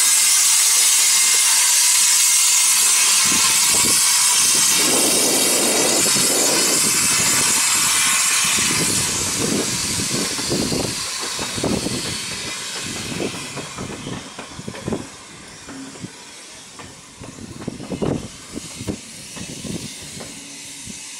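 Andrew Barclay 0-4-0 saddle tank steam locomotive pulling a train of coaches away, with loud steady steam hiss that fades after about eight seconds. Irregular knocks of wheels over rail joints die away as the train leaves.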